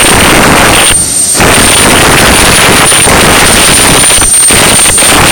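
Home-built jet engine, a TV81 tank turbocharger with a home-made combustion chamber, running with a very loud, steady roar. The roar dips briefly about a second in and again near the end.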